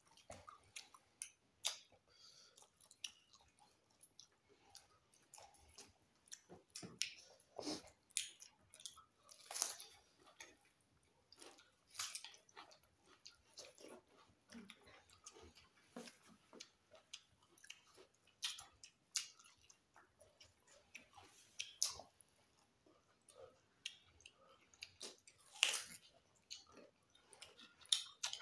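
Close-up mouth sounds of two people chewing rice and curry eaten by hand: irregular wet smacks and clicks, some louder than others.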